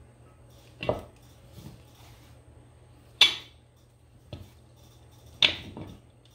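Sharp metal clinks and knocks from a cast-iron front wheel weight and its bolts against the steel wheel rim. There are three loud clinks about two seconds apart, the middle one the loudest, with fainter taps between.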